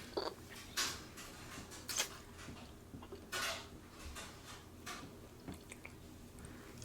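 King crab legs being shelled by hand: a handful of sharp cracks and clicks, spaced a second or so apart.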